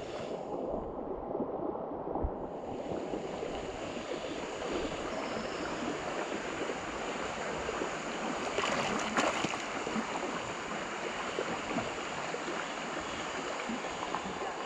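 Shallow creek water flowing and rippling around a drifting river tube, heard up close. There is a brief louder stretch about nine seconds in.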